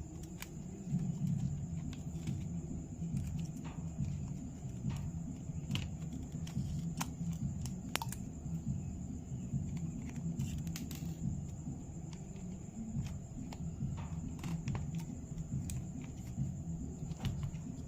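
Scattered small clicks and taps of tools handling the small parts of a phone's motorized pop-up camera, over a low uneven rumble and a faint steady high tone.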